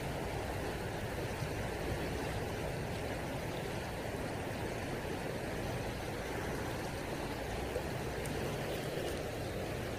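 Steady rushing of a swift river current.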